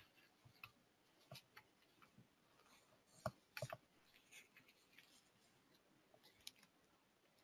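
Near silence: room tone with a few faint, scattered clicks, the strongest a short cluster about halfway through.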